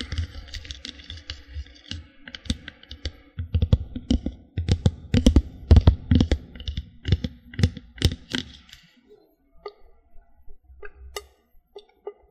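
Close-up clicks, taps and knocks of small objects being handled near the microphone, in a quick irregular run, thinning to scattered light ticks about nine seconds in.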